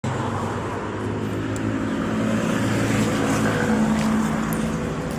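A motor vehicle's engine running close by, steady, with low engine tones that swell a little toward the middle and ease off again. The sound starts abruptly at an edit cut.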